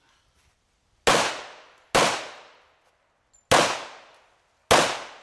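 Four handgun shots fired in competition: two about a second apart, a pause of over a second, then two more, each shot followed by a ringing echo that fades over most of a second.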